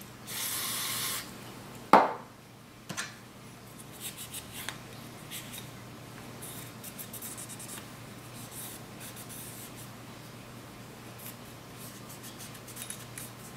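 A one-second hiss of aerosol CLP sprayed through a straw onto a cleaning patch, then a sharp knock and a lighter one. After that, faint rubbing and light ticks as the patch wipes the inside of a pistol slide.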